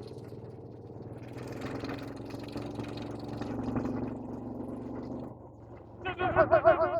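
A motor vehicle's engine runs steadily, its pitch edging up, then fades out about five seconds in. Near the end a loud, wavering, warbling voice-like call begins.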